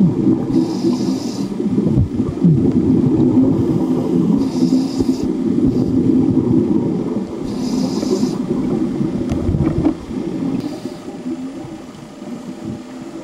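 Scuba regulator breathing recorded underwater: a hissing inhalation about every three and a half seconds, four in all, with a bubbling exhaust rumble of exhaled air between them. The sound grows fainter near the end.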